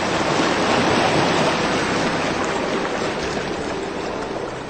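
Rushing water, like a stream or washing waves, swelling about a second in and easing off toward the end, over a soft, steady ambient music drone.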